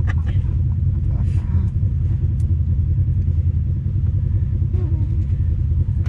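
Side-by-side UTV engine idling with a steady low rumble, the vehicle standing still on the trail.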